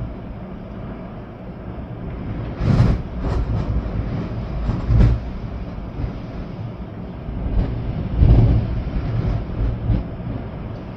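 Storm wind with rain, a steady low rumble with heavy gusts buffeting the microphone several times, the strongest about three seconds in and again past eight seconds.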